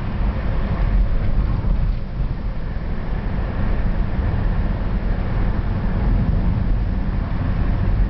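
Steady low rumble of a moving vehicle, engine and road noise heard from on board.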